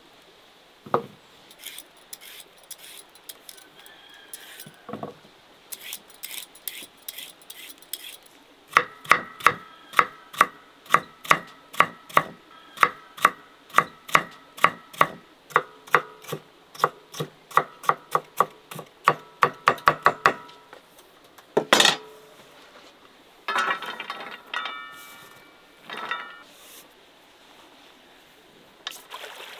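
Knife chopping vegetables on a wooden cutting board. A few scattered knocks give way to a steady run of chops, about two to three a second, lasting around ten seconds. It ends with a louder knock and a short flurry of knocks and scrapes.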